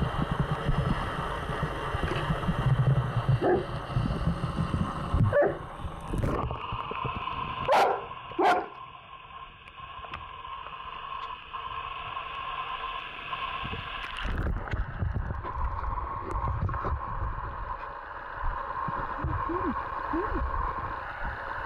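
A dog whimpering with a few short yips while wading in a swimming pool, over water sloshing and a steady hum picked up by a camera at and under the water's surface. Two sharp knocks come close together about eight seconds in.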